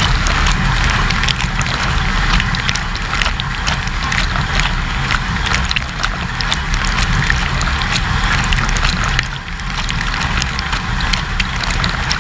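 Inside a running AEG dishwasher: water from the spray arms pelts the camera and the racks in a steady hiss with many sharp patters, over the low hum of the wash pump. The spray eases briefly about nine seconds in.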